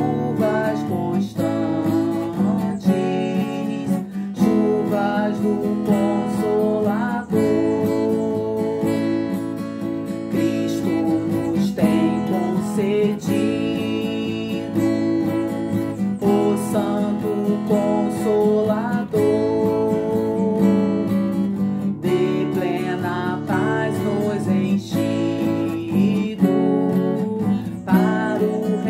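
Acoustic guitar strumming chords in a steady waltz rhythm, with no singing.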